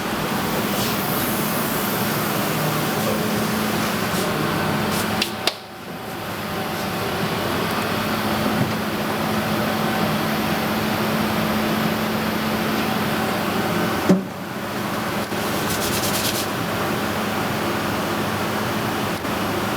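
Steady whirring air noise of running machinery with a faint low hum, dropping out briefly twice.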